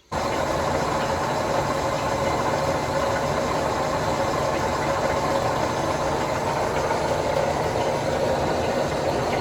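A machine running steadily, a dense even noise with no clear rhythm, that starts and stops abruptly.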